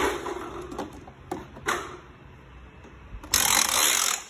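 Plastic toy pieces clicking and knocking, then about three seconds in a loud, rattling scrape of plastic that lasts about a second.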